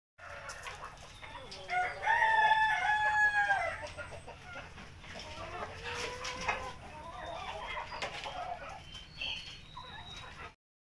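Chickens in a coop: a rooster crows once, the loudest sound, about two seconds in, and hens keep clucking afterwards. The sound cuts off suddenly near the end.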